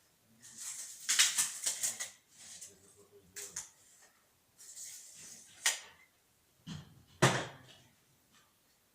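Two-head PVC window welding machine working: a series of sharp mechanical clicks and knocks, with short hisses of air, and one louder knock near the end.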